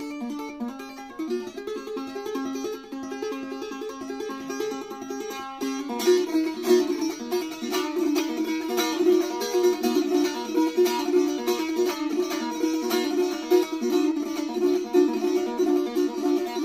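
Solo bağlama (long-necked Turkish saz) playing an instrumental interlude, plucked in the şelpe style with the fingers. It gets louder and busier about six seconds in.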